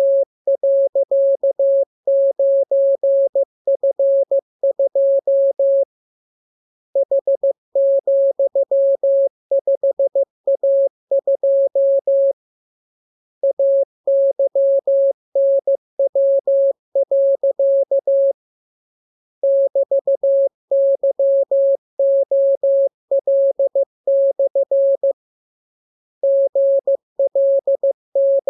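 Morse code sent as a single steady beep tone, keyed on and off in dots and dashes at an even practice speed. It comes in runs of several characters with a pause of about a second roughly every six seconds, four times over.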